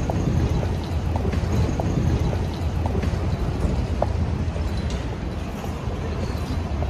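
City street traffic ambience: a steady low rumble of passing vehicles, with a few faint scattered clicks.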